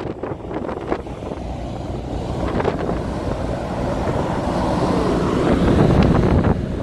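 Wind buffeting the microphone over the steady low rumble of a car ferry underway at sea, with the gusts swelling somewhat toward the end.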